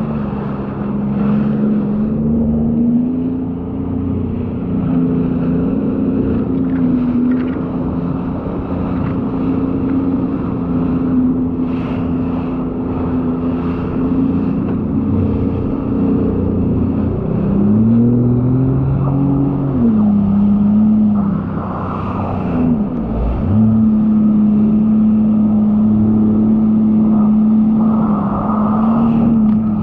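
Sea-Doo personal watercraft engine running steadily; its pitch rises and falls a little past halfway, dips for a moment, then holds steady again.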